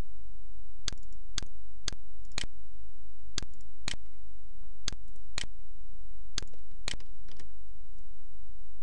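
Sharp clicks from a computer mouse and keyboard, about eleven of them, mostly in pairs about half a second apart, over a steady low electrical hum.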